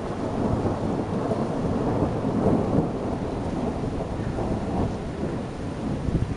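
Thunder rumbling: a long, low roll that swells over the first two or three seconds, then slowly eases off.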